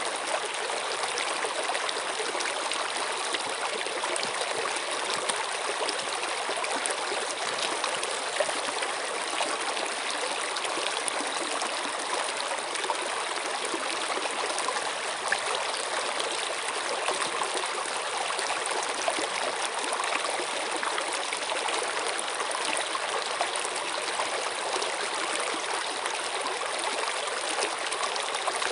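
Flowing water, a steady rushing with tiny splashes and drips flecked through it.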